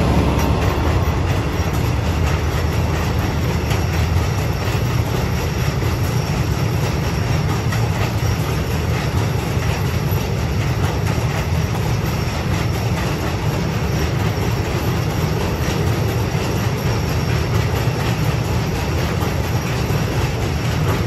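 Freight container wagons rolling past on the rails: a steady rumble of wheels and bogies with dense clicking. The hauling G2000 diesel locomotive's engine drone fades out about a second in.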